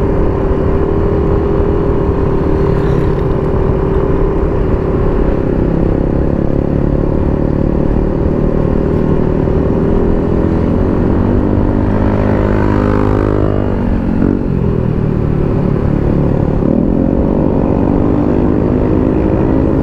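Motorcycle engine heard from the rider's seat while riding uphill, with low wind noise on the microphone. The engine note holds steady, sags gradually, drops sharply about fourteen seconds in as the throttle eases, then climbs again as it picks up.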